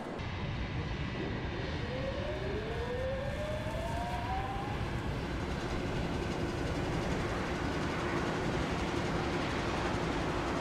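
Aircraft ground ambience: a steady mechanical rumble, with a whine that rises in pitch from about a second and a half to five seconds in, then a low steady hum.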